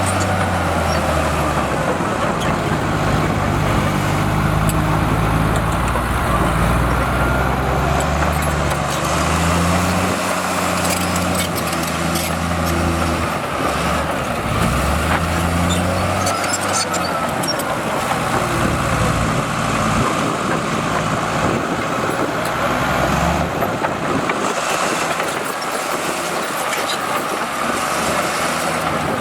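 Heavy diesel earthmoving machinery running steadily, its engine note rising and falling with load. A few clicks and knocks come through around the middle.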